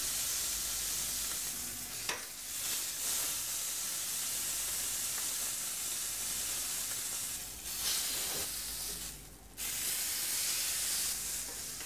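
Oiled beef rump mini roast sizzling steadily as it sears in a very hot pan. A few short clicks break in, and the sizzle drops away briefly just past nine seconds in before coming straight back.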